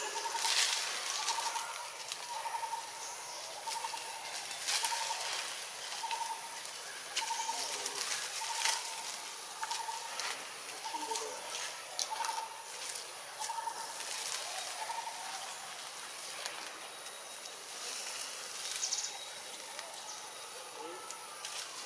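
A bird calling in a steady series of short, even notes, roughly one to two a second, that stops about fifteen seconds in, with scattered light clicks and rustles around it.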